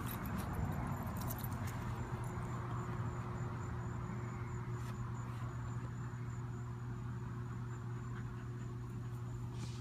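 Steady low hum of a motor or engine running, with a few faint clicks.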